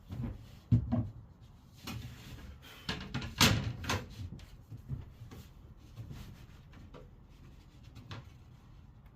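Wooden boards and tools being handled on a workbench: a series of knocks and clatters, the loudest about three and a half seconds in.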